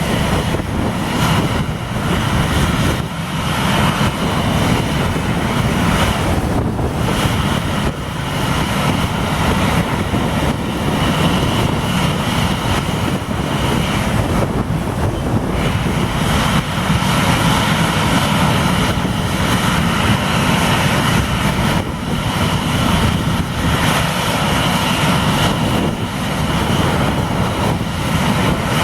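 Airliner engines at takeoff power: a loud, steady noise with faint high whining tones running through it.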